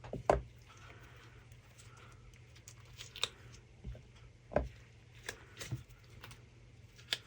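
Small cured resin pieces being popped out of a silicone mould and set down, giving about six light, separate clicks and knocks, the loudest just after the start.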